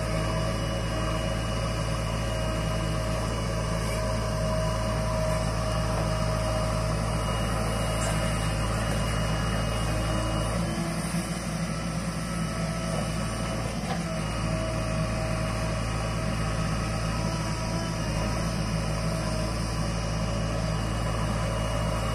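JCB 3DX backhoe loader's diesel engine running steadily while its backhoe digs soil, the engine note shifting briefly a little past halfway.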